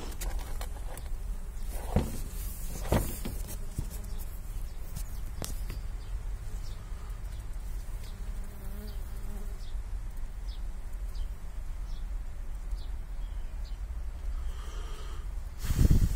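A mass of honeybees on open comb, buzzing as a steady low hum, with a couple of short knocks about two and three seconds in and a louder rustle right at the end.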